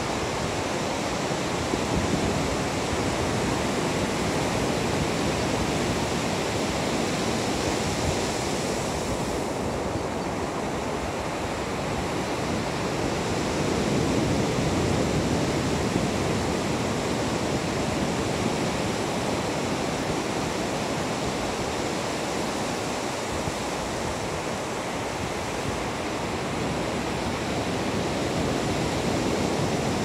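Ocean surf breaking and washing onto a sandy beach: a steady rush of waves that swells louder about halfway through.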